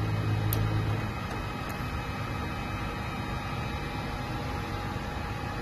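BGA rework station's cooling fans and hot-air blowers running with a steady airy noise; a low hum stops about a second in, with two faint ticks early on.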